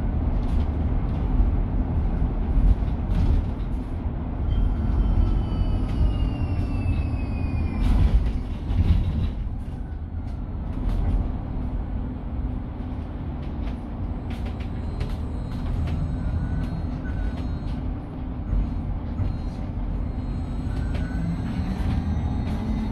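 Cabin noise aboard a Mercedes-Benz eCitaro battery-electric bus on the move: a low road rumble with scattered rattles and knocks. The electric drive's whine falls in pitch as the bus slows, about five seconds in, and rises again near the end as it speeds up.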